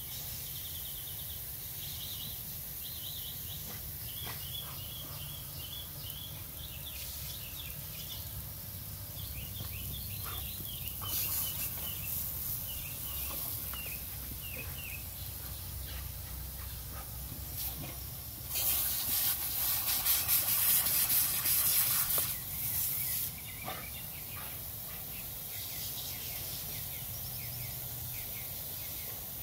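Lawn sprinkler spraying water with a steady hiss; the hiss gets much louder for about four seconds past the middle.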